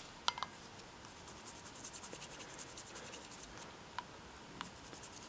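Toothbrush bristles scrubbing a wooden handle scale in quick, repeated strokes, brushing on a coat of diluted oxalic acid solution. A couple of light ticks come just before the scrubbing, and single ticks follow about four seconds in.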